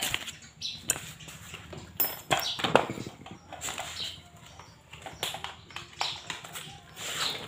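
Irregular knocks, clicks and scrapes of tools and metal parts being handled and set down on a concrete floor: a power drill and a motorcycle cylinder head being laid out for valve lapping.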